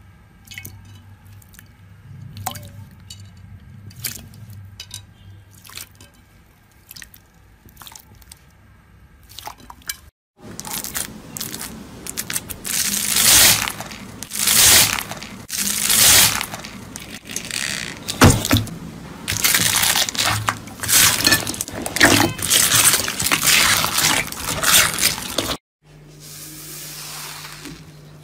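Slime being squeezed, poked and stretched by hand, with sticky clicking, crackling and squishing in three separate clips. The first is quieter, with scattered clicks. The middle one, from about ten seconds in, is the loudest, with irregular bursts of crunchy squishing. The last, near the end, is a soft hiss over a low hum.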